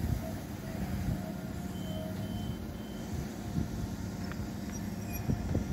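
Passenger multiple-unit train rolling slowly into the station as it comes to a stop, with a steady low hum from its running gear and traction. A faint high squeal sounds in short dashes a couple of seconds in.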